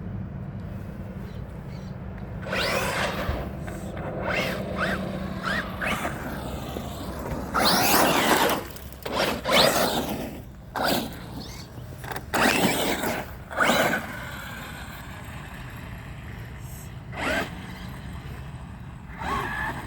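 Electric remote-control truck driven in repeated bursts of throttle, the motor whining up and down with scraping from the tyres, five or so bursts of a second or two each.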